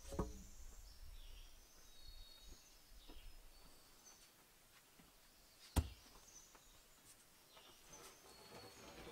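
Spruce logs being handled: a sharp wooden knock right at the start and a louder single knock a little under six seconds in, as a log is set down or knocked against another. Small birds chirp with short high calls throughout.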